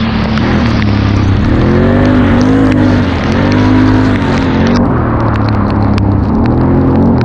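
Can-Am Outlander XT-P ATV's V-twin engine pulling hard on a dirt track, its note rising and falling several times as the throttle is worked. It runs over a steady rush of wind and tyre noise that thins out about five seconds in.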